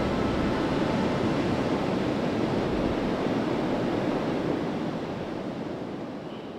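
Ocean surf rushing onto a beach, a steady wash of noise that fades out over the last couple of seconds.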